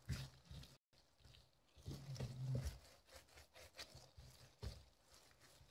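Faint, scattered soft knocks and rustles of plastic-gloved hands rolling dough into strands on a board.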